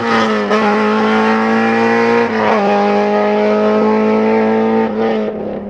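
Honda Civic EG6 Group A touring car's 1.6-litre VTEC four-cylinder engine at high revs as the car drives away, its note holding steady with a brief dip in pitch about two seconds in. The sound grows a little fainter near the end as the car pulls away.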